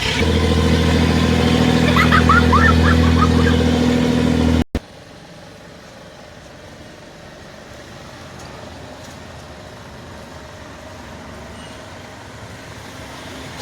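An engine running steadily at a constant pitch, with a few short high chirps over it about two to three seconds in. It cuts off suddenly, giving way to a quieter, even rumbling noise.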